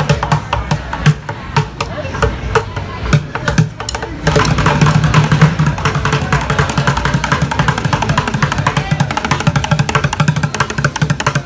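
Loud music with a busy drum and percussion beat, growing louder and fuller about four seconds in, with voices mixed in.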